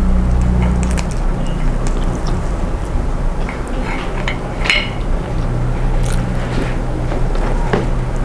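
Fingers tearing fried catfish and dipping into sambal and rice on a plate: scattered small crackles and clicks over a steady low hum.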